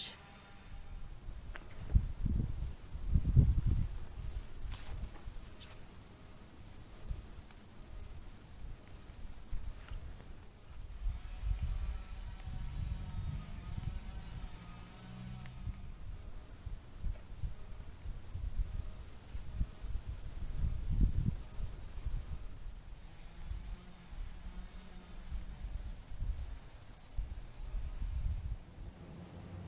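Crickets and other insects calling: a steady high drone, with a cricket chirping in an even rhythm of about two to three chirps a second, over irregular low rumbles.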